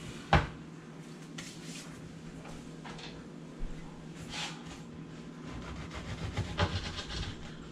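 A crusty bread loaf set down with a sharp knock on a plastic cutting board, a few light handling rustles, then from about five and a half seconds in a kitchen knife sawing through the crust in quick repeated strokes.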